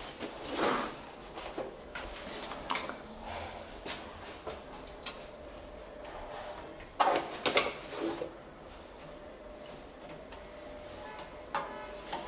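Handling noise from working inside a metal breaker panel: scattered clicks, knocks and rubbing as a gloved hand moves wires and terminals by the circuit breakers, with a quick run of louder clicks about seven seconds in.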